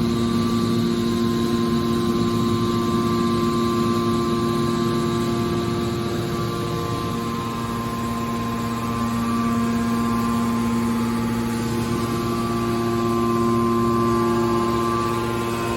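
Hydraulic power unit of a scrap-iron baler running: the electric motor and pump give a steady hum with a whine on top, which dips slightly about seven seconds in.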